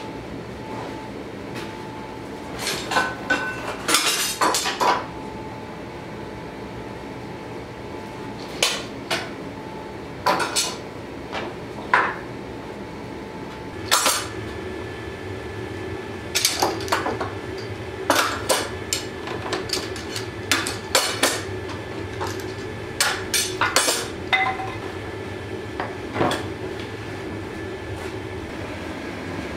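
Steel F-clamps clanking and clicking as they are handled and tightened along wooden boards clamping a hot blade, in irregular clusters of sharp metal knocks. A gas forge runs underneath with a steady roar.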